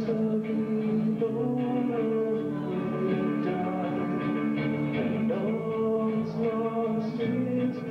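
Alternative rock band playing live: guitar-led rock music with singing.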